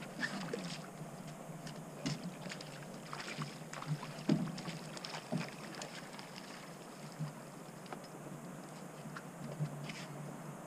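Scattered light knocks and clicks of anglers handling rods, a landing net and fish on a pontoon boat's deck, busiest in the first half, over a steady low hum.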